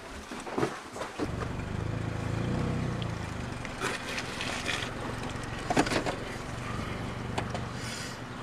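Car engine running, heard from inside the cabin as a steady low hum that sets in about a second in, with a few sharp clicks and knocks over it.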